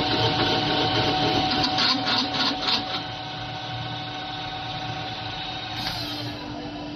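Double-head automatic boring machine running, its boring heads working in both ends of a steel carrier-roller tube: a steady mechanical drone with held tones and some rattling. It drops to a quieter, even run about three seconds in.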